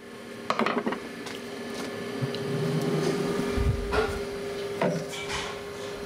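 Knocks and rubbing from handling battery clips and wiring on a wooden bench, over a steady electrical hum that grows stronger about halfway through.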